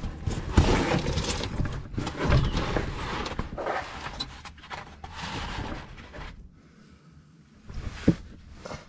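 A cardboard sheet being handled and shifted over the ground, with irregular scraping and rustling for about six seconds. After a short lull there is a single sharp knock near the end.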